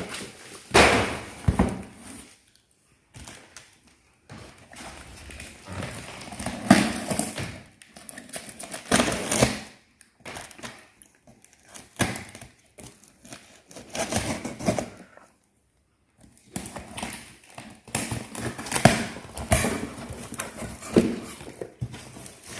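Cardboard box and paper packing being handled and pulled apart: irregular rustling with dull thuds, in bursts separated by short pauses.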